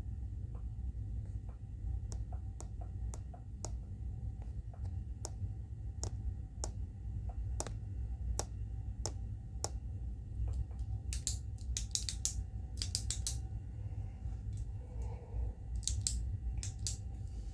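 A pen clicking and ticking close to the microphone. Sharp single clicks come about once a second at first, then quick runs of louder, crisper clicks twice in the second half, over a steady low hum.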